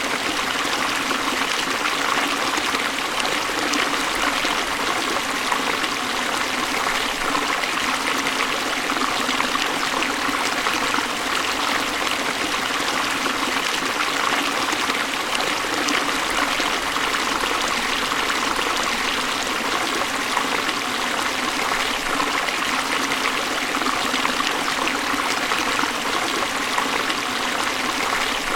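Waterfall: water falling and splashing in a steady, unbroken rush, mostly a bright hiss with little deep rumble.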